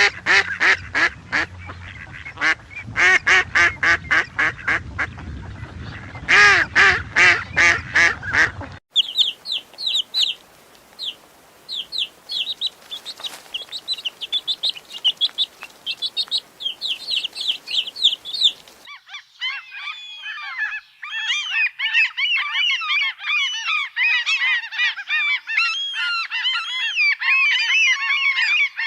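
Bird calls in three back-to-back recordings: first loud, repeated calls, several a second, for about nine seconds; then sharp high chirps over a faint hiss; then, from a little past halfway, a dense chatter of many birds calling at once.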